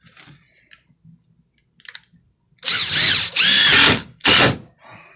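Makita cordless impact driver running in two bursts, about 1.3 s and then half a second, driving a Forge Fast wood screw into timber.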